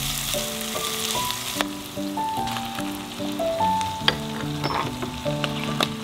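Diced Spam and sweet corn sizzling in oil in a frying pan, the sizzle strongest in the first second and a half, with a few sharp clicks of stirring. Soft background music with held piano-like notes plays throughout.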